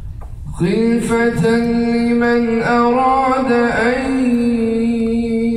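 A man reciting the Quran in melodic tajwid style, coming in about half a second in and holding one long, steady note with small ornamental turns.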